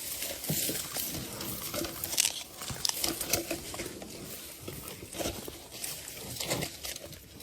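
Wet cage fishing net being hauled in and handled on a small boat: irregular knocks, rustles and patters of mesh, water and mud, with no steady rhythm.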